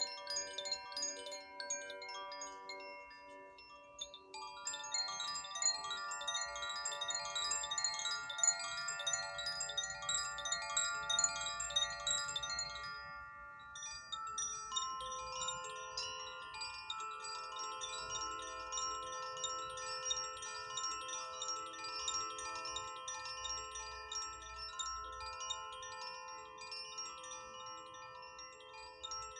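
Koshi chimes tinkling continuously, their tuned rods ringing in many overlapping sustained tones. The set of notes changes about 4 s in and again about 14 s in.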